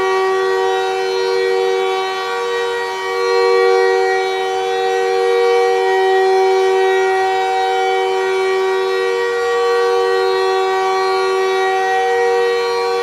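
Montreal Canadiens goal horn blowing one long, steady blast: a chord of two main tones held without a break, the arena's signal of a home goal.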